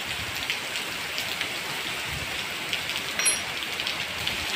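Rain falling steadily, a constant hiss with many small drop ticks. There is a brief high-pitched chirp about three seconds in.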